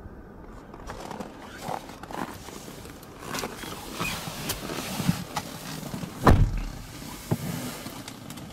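Handling noises in a car's cabin: scattered clicks, rustles and light knocks, with one heavy dull thump about six seconds in and a smaller knock a second later.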